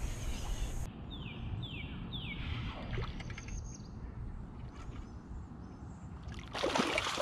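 A bird calls three short falling whistles about a second in, over low wind and water noise. Near the end, a hooked speckled sea trout thrashes and splashes at the surface beside the kayak.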